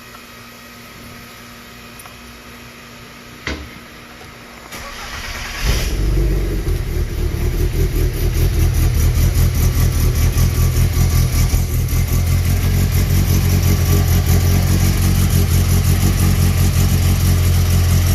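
The 1992 VW GTI's built 2.1 stroker 16-valve engine with 288 cams is started: a click, then about a second of cranking, and it catches about five and a half seconds in. It settles into a loud, choppy idle from the big cams, with the newly clamped exhaust leak no longer noticeable.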